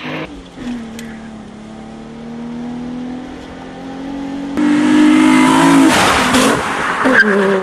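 Nissan 350Z's 3.5-litre V6, fitted with an aftermarket air filter, engine map and exhaust, running at speed with a steady engine note. About four and a half seconds in it turns much louder, with the engine revving hard and a rush of noise as the car passes close.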